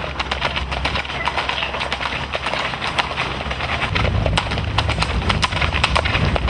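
Many horses' hooves clip-clopping on a road as a column of riders passes, the hoofbeats overlapping irregularly. A low rumble grows louder about four seconds in.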